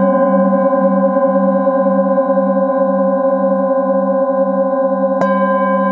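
Singing bowls ringing in long, overlapping sustained tones, the low tone wavering in a slow pulse about twice a second. A fresh strike about five seconds in adds a new layer of higher ringing.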